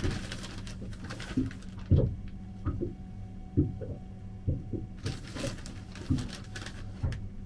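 A bag crinkles as batter mix is shaken out over cut potato fries on a paper plate. Fingers tossing the fries make soft, uneven knocks. A steady low hum runs underneath.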